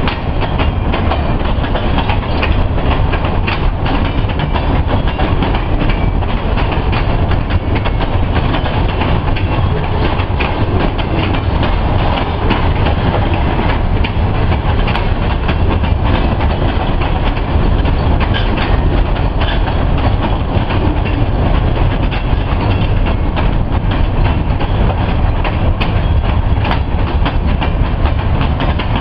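Freight train rolling past: a steady, loud rumble of wheels on rail, with clicking from the wheels crossing rail joints.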